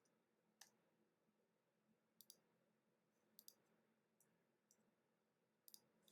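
Near silence with a few faint, short clicks, most in quick pairs, from trading cards being handled.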